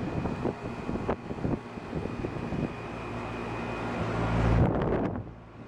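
1995 Tempstar 3-ton air conditioner condenser running steadily: its Copeland reciprocating compressor and condenser fan make a continuous hum with a faint steady whine. A sharp click comes about a second in, and a low rumble swells near the end, then the sound briefly drops.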